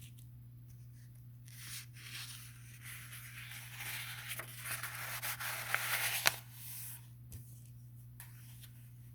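Rustling and crinkling handling noise for several seconds with a few sharp clicks, loudest near the end, over a steady low hum.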